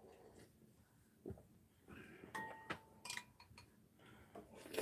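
Near silence with faint eating sounds: a soft knock, then a few light clinks of a metal spoon against a ceramic soup bowl.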